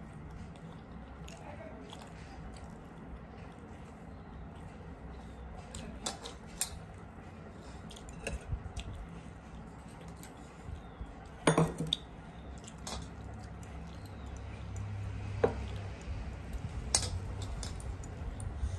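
Fingers mixing rice and curry on steel plates, with a few sharp clinks of a small steel bowl against a steel plate; the loudest, ringing clink comes about halfway through.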